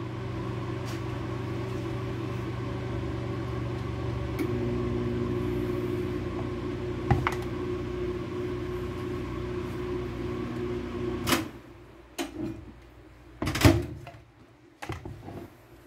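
Microwave oven running with a steady hum, then cutting off abruptly about eleven seconds in. It is followed by a few clicks and knocks, one of them loud near the end.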